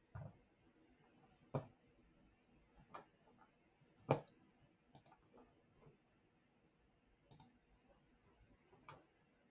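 Faint computer mouse clicks: several single clicks spaced a second or more apart, the loudest about four seconds in, over near-silent room tone.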